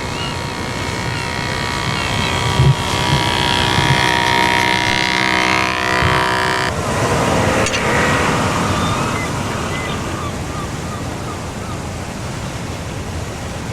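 An RC boat's electric motor whines at a steady pitch for about four seconds, then cuts off abruptly, followed by a short falling whine. A steady hiss runs underneath, with short high chirps throughout.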